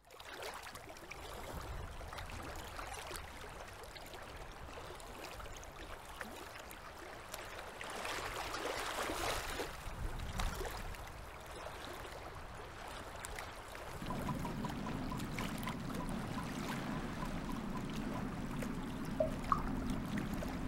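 Gentle waves washing on a sandy beach, with a swell of surf about halfway through. A low steady hum joins in about two-thirds of the way through.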